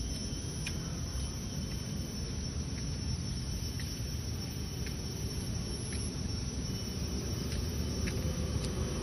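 Steady low rumbling noise, like wind or distant traffic, picked up by a handheld phone's microphone outdoors, with a few faint ticks.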